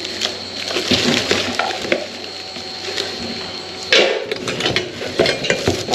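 Plastic packaging crinkling and rustling, with irregular knocks and clatter as wrapped parts are handled and lifted out of a cardboard box. There is a sharper, louder clatter about four seconds in.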